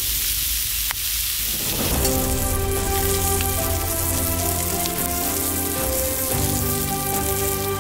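Thick bone-in steaks sizzling on a griddle plate over a wood fire, the hiss heaviest in the first two seconds, under background music of slow held notes.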